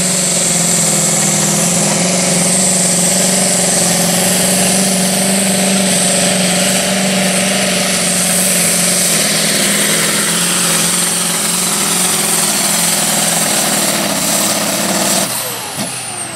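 Modified pulling tractor's racing engine running at full power under load during a pull: a loud steady drone with a high whine above it. About fifteen seconds in it drops away, and falling whines follow as it winds down.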